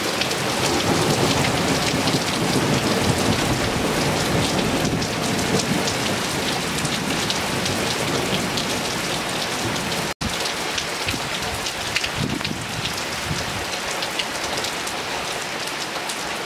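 Hard rain pelting down on wet paving and puddles: a dense, steady hiss of countless drop splashes. It breaks off for a split second about ten seconds in.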